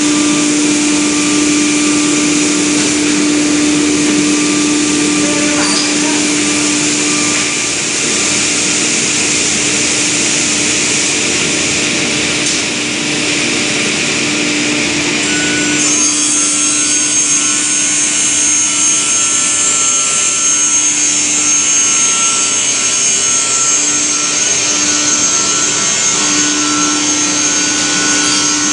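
Industrial panel saw with main and scoring blades running steadily and cutting through a wood panel; the cutting noise changes character about halfway through.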